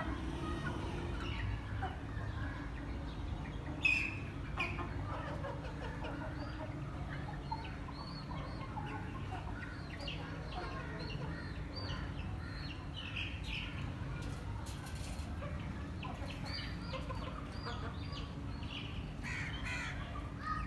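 Young Aseel chickens clucking and giving short chirping calls scattered through, with one louder sharp sound about four seconds in, over a steady low background hum.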